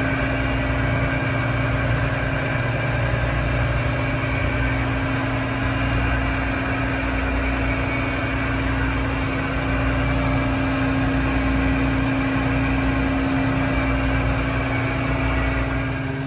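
Ship's engine-room machinery running steadily: a loud, even drone with a constant mid-pitched hum over it.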